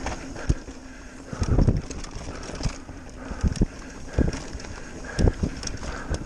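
Mountain bike rolling fast down a dirt trail, its tyres, suspension and frame jolting and rattling over roots and bumps. The jolts come as irregular heavy thumps every second or so over a steady rushing noise.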